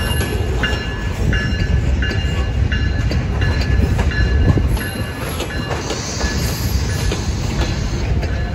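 Loaded freight cars of a CSX freight train rolling past close by: a steady rumble of steel wheels on rail with repeated clicks over the rail joints. Short, high-pitched wheel squeals recur about every two-thirds of a second.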